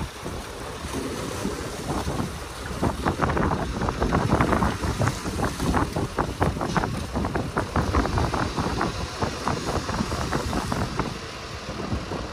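Heavy diesel earthmoving machinery running, with irregular metallic clattering and wind buffeting the microphone.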